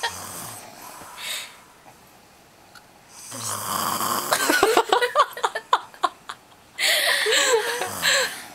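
A sleeping girl snoring: faint breaths at first, then two long, loud, rattling snores, starting about three and seven seconds in.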